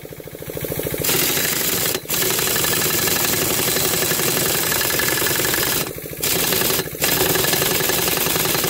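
Air impact wrench hammering on the seized flywheel nut of a Villiers Mk40 engine: a light start, then hard rapid hammering from about a second in, broken by short pauses about two, six and seven seconds in. The nut does not give; it is still too tight.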